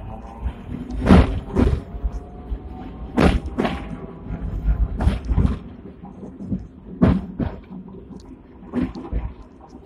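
Hong Kong double-decker tram running along the street track, heard from inside the lower deck. Its wheels knock in pairs over the rail joints, two clunks about half a second apart roughly every two seconds, over a steady low running rumble.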